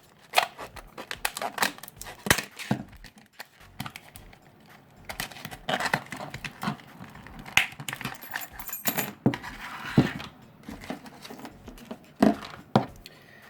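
A padlock being unpacked from its retail packaging: plastic crinkling and tearing, with irregular metallic clicks and clinks from the padlock and its keys being handled.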